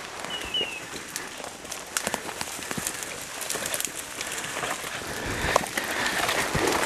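Brush rustling and twigs crackling and snapping as someone pushes on foot through thick undergrowth, with many short irregular crackles. Two short high chirps sound near the start.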